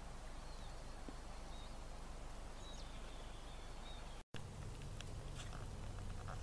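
Quiet woodland ambience: a steady hiss with faint, thin, high bird calls, including one longer held note about three seconds in. The sound breaks off briefly about four seconds in, after which a low steady hum and a few faint clicks come in.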